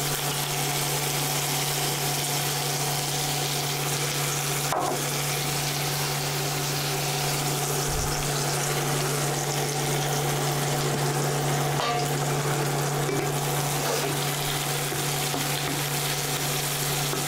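Chopped green chillies sizzling steadily in hot oil with mustard and cumin seeds in a stainless steel kadhai, a tempering (phodni), over a steady low hum. A wooden spatula stirs them near the end.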